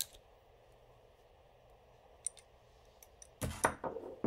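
3D-printed PETG plastic wrench cracking and crunching as locking pliers crush it: a sharp click at the start, a couple of faint ticks, then a quick run of loud cracks about three and a half seconds in as the plastic gives way.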